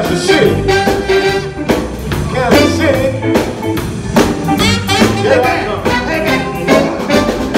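Live blues band playing: a saxophone plays a bending lead line over electric keyboard, drum kit, electric guitar and bass guitar, with a steady drum beat.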